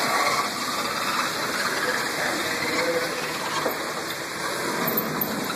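Heavy thunderstorm downpour: a steady rushing of rain heard from just inside a building's glass doors.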